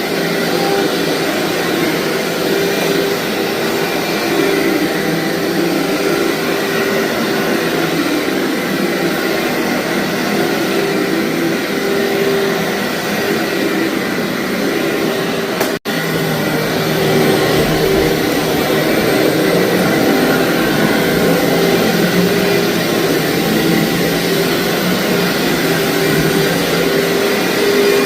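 Vacuum cleaner running steadily over thick, fluffy carpet, a continuous motor hum with a steady whine, briefly cutting out once about sixteen seconds in.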